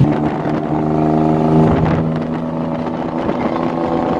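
Tuk-tuk's small engine running as the three-wheeler drives along, heard from the open passenger seat: a steady, buzzing engine note with road noise.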